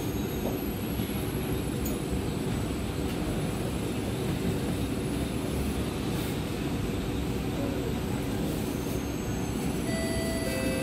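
Steady hum and rush inside a stationary C751B metro car with its doors open at the platform, from the train's running equipment and air-conditioning. A few steady tones start near the end.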